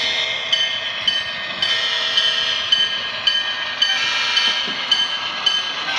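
HO scale CSX GP38-2 model diesel locomotive and its freight cars running along the track with a steady high whine, and a sharp click about twice a second as the wheels cross rail joints.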